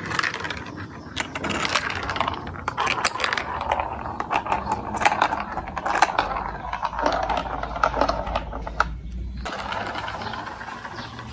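Marbles rolling and clattering through a plastic building-block marble run: a dense, uneven stream of quick clicks and rattles. A low hum sits under it for a few seconds past the middle.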